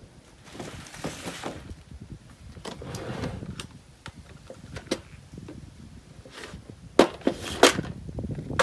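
Gear being handled: a metal ammo can's latched lid is opened and things are taken out and set down on a wooden bench, giving scattered clicks, clacks and rustling, with two sharp knocks about seven seconds in.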